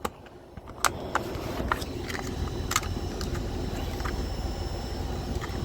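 A few sharp plastic clicks as a small cab light fixture above a truck's seat is pried out of its housing, over a steady low rumble that sets in about a second in.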